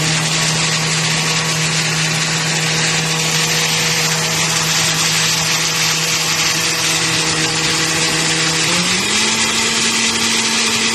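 Countertop blender running, puréeing a thick sauce of guajillo chiles, tomato, garlic, onion and ground shrimp. It is a steady motor hum with a loud hiss, and the pitch steps up about nine seconds in.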